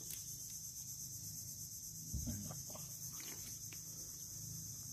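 Steady high-pitched insect chorus, with a few faint wet squelches and a dull thump about two seconds in from a hand digging in the mud of a mud crab burrow.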